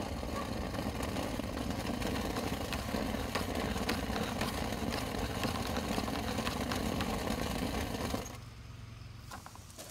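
Motor-driven dryer vent cleaning equipment running steadily, with scattered ticks, then switched off about eight seconds in.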